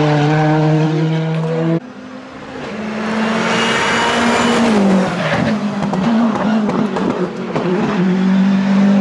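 Rally car engines at full throttle: one car holds a high, steady engine note, which cuts off abruptly about two seconds in. A second rally car then rushes up and past with a growing hiss, its engine note dropping as it goes by, before another steady high engine note near the end.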